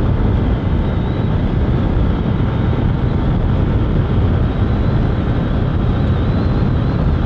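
Steady wind rush on the microphone of a 150 cc motorcycle cruising at about 100 km/h, with the engine's hum underneath.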